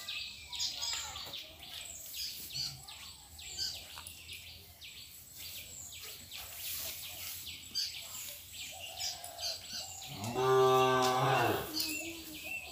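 A cow moos once, a single call lasting just over a second near the end. Birds chirp in the background.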